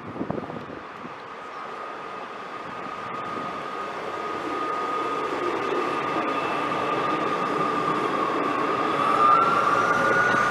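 A train approaching, its sound growing steadily louder, with a steady high whine that steps up in pitch near the end.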